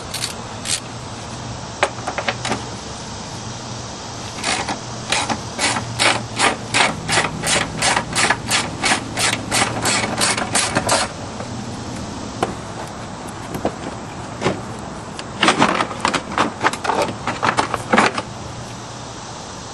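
Hand ratchet wrench clicking as splash-guard fasteners are backed out: a long run of evenly spaced clicks, about three a second, then a second, quicker run near the end.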